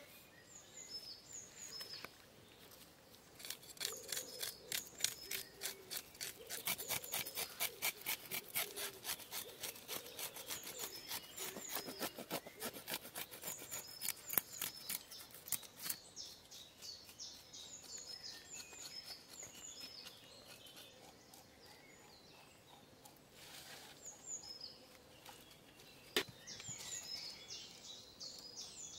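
A blade scraping and cutting gania fish (freshwater garfish) as they are cleaned: quick rhythmic strokes, about four a second, starting a few seconds in and stopping a little past halfway, with one sharp click later. Birds chirp throughout.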